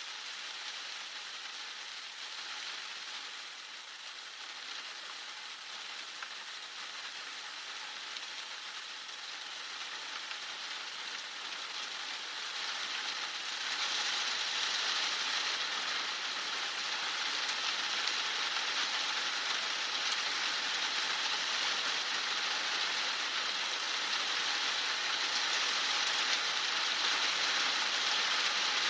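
Heavy rain falling hard, a steady hiss of many drops with no distinct strikes, growing louder about halfway through.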